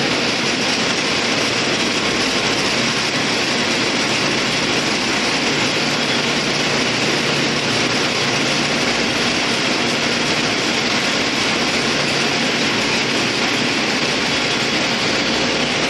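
Multi-spindle yarn winding machine running, its many spinning bobbins and guides making a steady, even whirring noise with no breaks.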